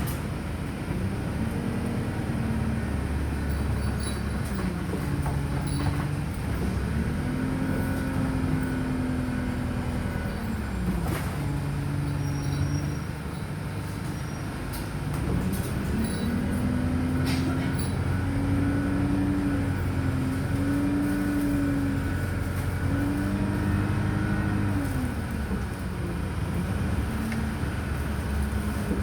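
Wright StreetLite DF single-deck bus's diesel engine and driveline under way. The engine note rises and holds, then falls away several times, as in stop-start town driving, with small steps in pitch during the longest pull, from about 15 to 25 seconds in.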